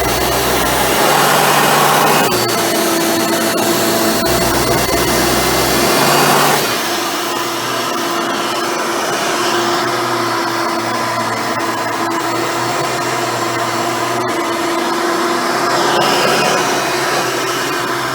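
Hoover Elite upright vacuum cleaner running with its dual-row brush roll, a loud steady noise with a held motor tone. Its sound shifts twice in the first seven seconds.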